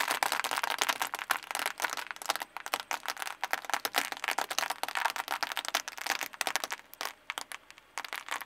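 Dense crackling and snapping of thin, brittle white curved pieces being crushed under a slowly rolling car tyre on asphalt. The crunching thins out near the end.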